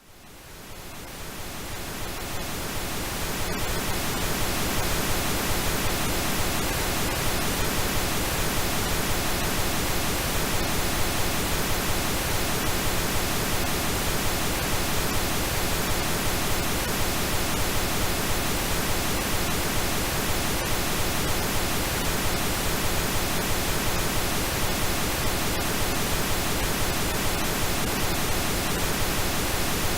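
Synthetic pink noise, a steady even hiss, fading in over the first few seconds and then holding level, with faint steady tones mixed in.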